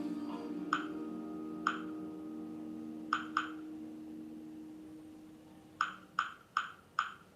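Soft acoustic guitar background music, a held low note slowly fading. Over it come eight short, sharp clicking pings, each ringing briefly: two spaced a second apart, a quick pair, then four in quick succession near the end.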